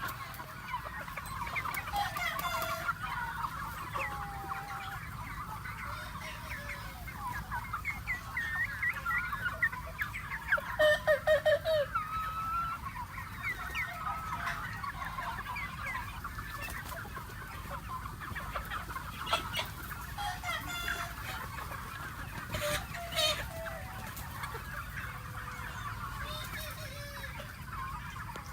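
A flock of free-range chickens clucking and calling continuously, with a loud run of calls about eleven seconds in.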